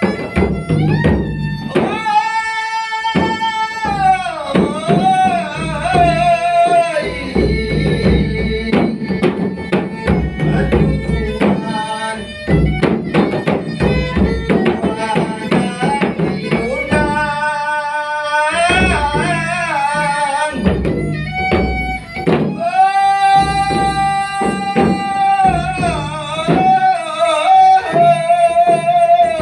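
Dendang singing: a voice holds long, wavering high notes that slide down at the end of each phrase, three phrases in all, over a steady drum beat.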